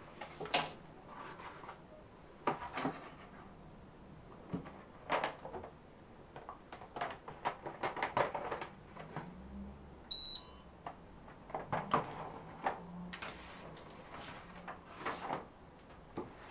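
Cardboard boxes and papers being picked up and put down on a desk, in irregular clicks and rustles. About ten seconds in, a CipherLab 1660 handheld barcode scanner gives a single short electronic beep as it reads a barcode.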